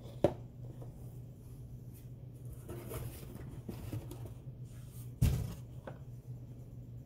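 Cardboard Funko Pop boxes handled on a table: a sharp tap as a box is set down just after the start, soft scraping and rustling of cardboard in the middle, and a louder knock a little after five seconds as another box is picked up. A steady low hum runs underneath.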